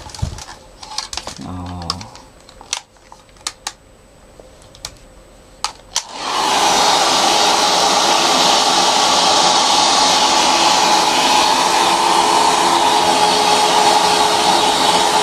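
A handheld hair dryer switches on about six seconds in and runs steadily, a loud rush of air with a steady whine in it. Before it starts there are a few faint clicks and knocks of handling.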